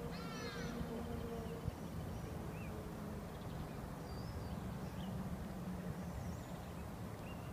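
Steady low wind rumble on the microphone, with a few short bird chirps scattered through it and one descending bird call just after the start.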